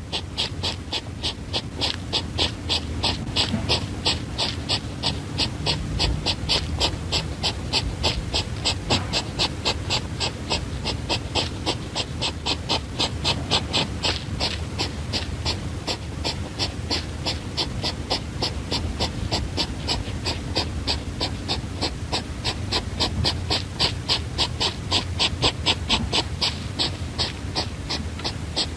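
A small animal making a rapid, even series of short, sharp breathy calls, about four a second, that goes on without pause.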